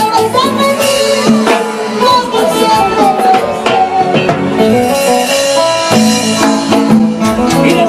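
Live band music with a drum kit keeping a steady beat under held melodic notes, played through PA loudspeakers.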